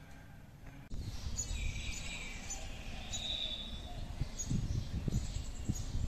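Outdoor ambience that starts abruptly about a second in: a low rumble with a few chirping birds over it.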